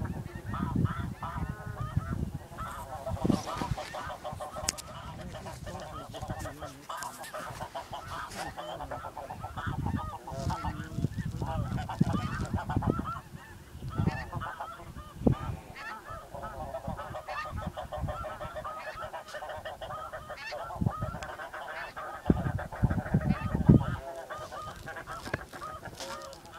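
Flock of snow geese calling continuously, many short honks overlapping into a steady clamour. Low rumbles come and go underneath.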